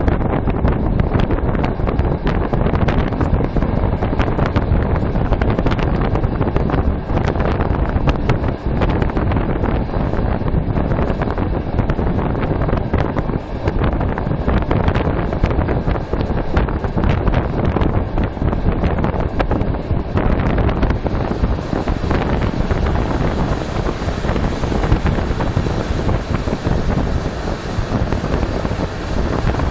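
Steady wind rush buffeting the microphone over the low rumble of a passenger train rolling along the track; the hiss turns brighter about two thirds of the way through.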